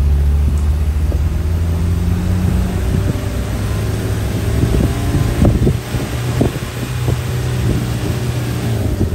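A vehicle's engine running steadily with a low rumble, with a few short knocks and rattles about halfway through.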